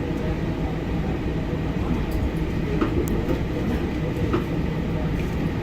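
Washington Metro subway car running on the track, heard from inside: a steady low rumble with a few scattered clicks from the wheels on the rails.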